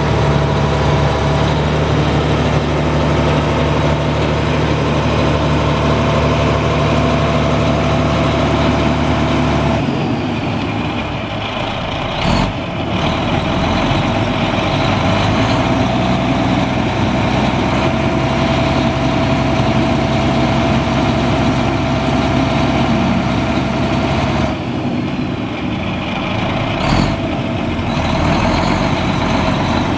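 Mack six-cylinder turbo diesel engine of a 1985 Mack RS688L mixer truck, running at a steady idle. Its note changes about ten seconds in and again near the end, and two brief sharp sounds come through about twelve and twenty-seven seconds in.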